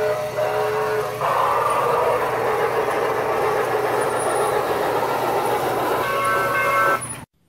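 Toy steam train set running on its track, with a steady rushing running noise. Its sound-effect steam whistle sounds as a chord of tones at the start and again about six seconds in. The sound cuts off suddenly just before the end.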